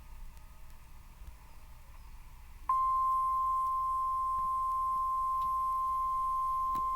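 Faint hiss, then about two and a half seconds in a steady single-pitch alert tone of about 1 kHz starts abruptly and holds unchanged. It is the long attention tone of an Emergency Alert System broadcast, ahead of a civil danger warning.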